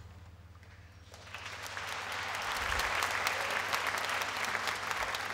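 Audience applauding in a theatre, starting about a second in and swelling to a steady clapping, over a low steady hum.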